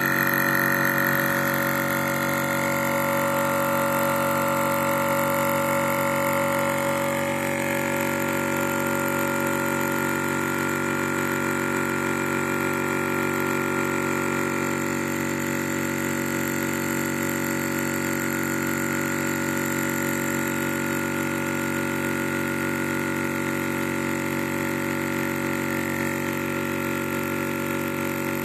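Yong Heng water-cooled high-pressure air compressor running steadily, a constant mechanical hum with several held tones; a few of the higher tones shift in pitch in the first several seconds before settling.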